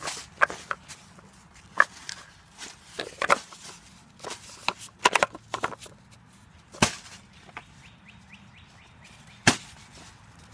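Scattered sharp knocks and clicks as a cardboard mailing tube, plastic toothpaste tubes and small oil bottles are handled and set down on a metal mesh table, with a cardboard box being moved. Two knocks stand out as the loudest, one about two-thirds of the way through and one near the end.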